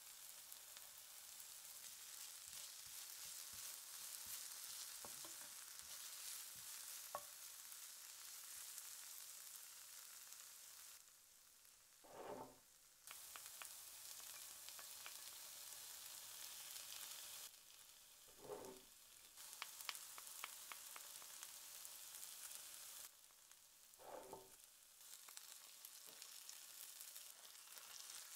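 Red onion slices sizzling softly in oil in a frying pan, stirred with a wooden spoon as harissa paste goes in. The sizzle breaks off briefly three times.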